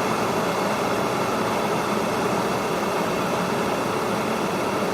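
Kettle heating water, a steady rushing hiss with no whistle.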